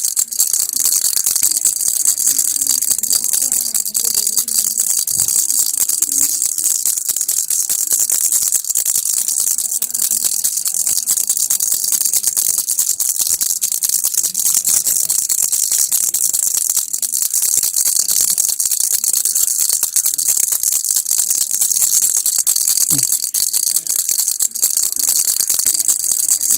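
A baby's rattle toy shaken steadily without a break: a dense, fast, bright rattling.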